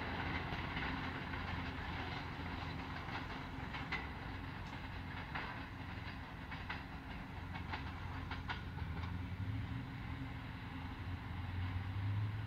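A train running on the line, its wheels clicking now and then over the rail joints, over a steady low drone that swells slightly near the end.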